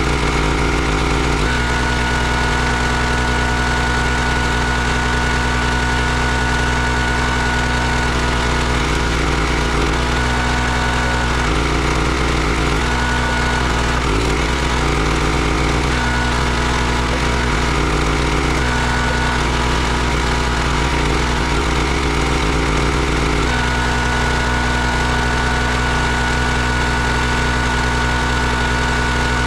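Engine of a County Line 32-ton log splitter running steadily, its note shifting several times under the changing load of splitting logs.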